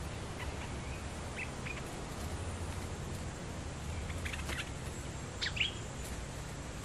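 Bulbuls calling in short chirps: a few scattered notes, then a quicker cluster near the end with the loudest note.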